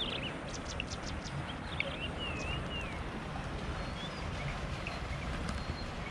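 Birds chirping and whistling, a few short curving calls in the first half and fainter chirps later, over a steady low outdoor rumble.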